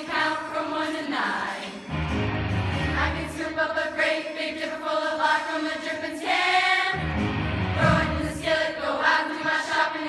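Girls' choir singing together with instrumental backing. A low bass part comes in about two seconds in, drops out around four seconds and returns about seven seconds in.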